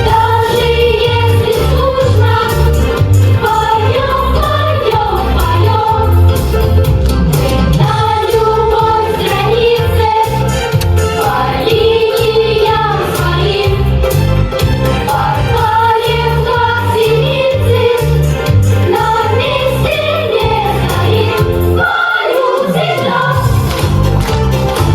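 A song from a stage musical: a group of voices singing together over an accompaniment with a steady bass beat.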